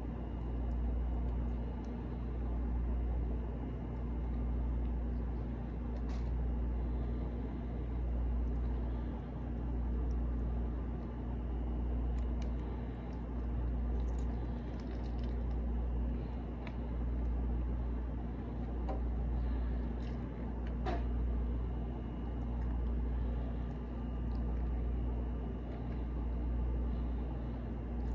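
A steady low mechanical hum and rumble, swelling and fading evenly about every two seconds, with a few faint clicks.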